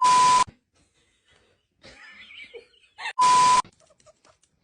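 Two short electronic beeps, each a steady single tone over a hiss lasting about half a second: one right at the start and one about three seconds in, with faint scattered sounds between.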